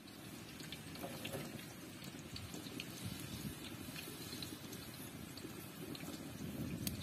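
Water running and splashing steadily, with faint scattered ticks.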